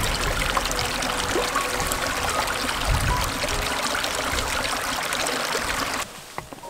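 Small mountain stream trickling and splashing over rocks, a steady rush of water that cuts off about six seconds in.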